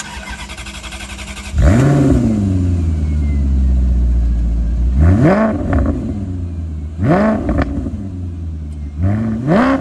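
2006 Maserati Quattroporte Sport GT's naturally aspirated 4.2-litre V8 cold-starting: the starter cranks for about a second and a half, the engine catches with a rev flare and settles to idle, then is blipped three times, about two seconds apart.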